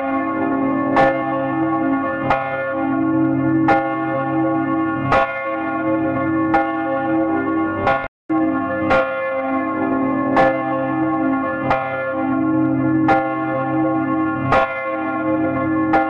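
A church bell tolling, struck about every second and a half, each stroke ringing on with many overtones into the next. The sound cuts out for a moment about eight seconds in, then the tolling resumes.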